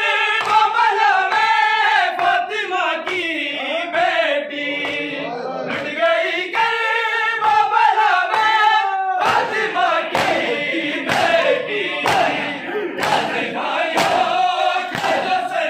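Men's voices chanting a noha, an Urdu lament, in unison. From about nine seconds in, it is joined by sharp strokes roughly once a second: hands striking bare chests in matam.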